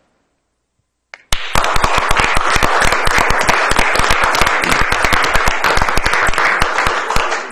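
Audience applauding at the end of a talk, starting about a second in after a brief silence and dying down near the end.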